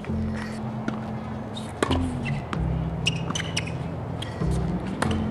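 Hip-hop backing track with a steady bass line, with several sharp knocks of tennis balls struck by a racket and bouncing on the court.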